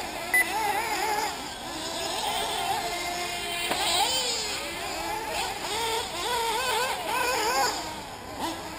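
Several 1/8-scale nitro RC buggy engines racing, their high-pitched whine constantly rising and falling as they rev up and back off around the track. A brief sharp blip sounds about half a second in.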